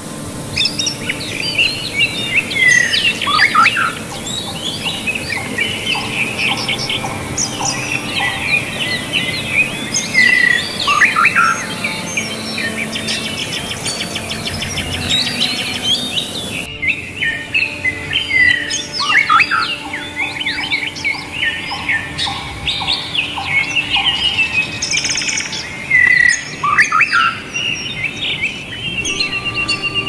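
A chorus of forest birds singing and calling over one another, with chirps, trills and falling whistled notes, over a steady rush of flowing stream water. The birdsong breaks off for an instant about halfway through and starts again.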